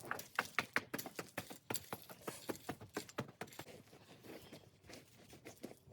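A quick, irregular run of faint clicks and light knocks, thickest in the first two seconds and sparser after.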